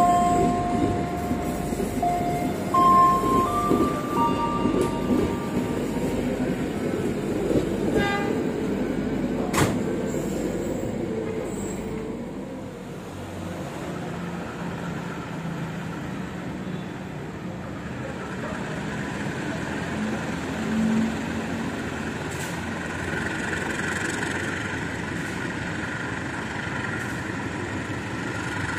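Passenger train moving through a station, its wheels and coaches rumbling steadily, with a few short stepped tones over it in the first few seconds. The rumble fades out about twelve seconds in, giving way to the quieter, steady running of a diesel locomotive standing at a platform.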